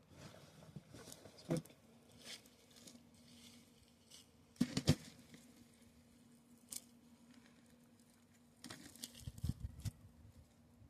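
Gloved hands digging through loose, dry soil for potatoes: scattered scrapes, rustles and soft knocks, busiest around the middle and again near the end.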